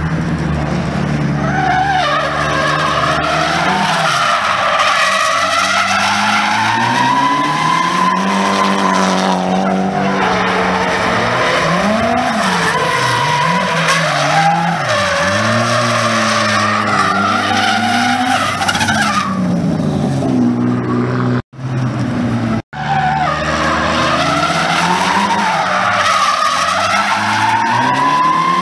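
Nissan Silvia drift cars sliding through a corner: tyres squealing in a wavering pitch while the engines rev up and down. The sound drops out twice for an instant about three-quarters of the way through.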